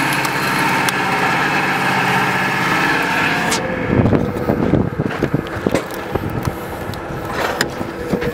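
Forklift engine running steadily. It cuts off suddenly about three and a half seconds in, giving way to scattered knocks and rustling.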